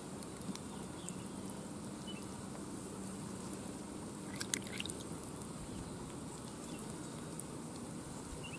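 Faint trickling and dripping of water in wet rice-paddy mud, with small scattered wet clicks as hands work at an eel hole, and a short cluster of sharper ticks about four and a half seconds in.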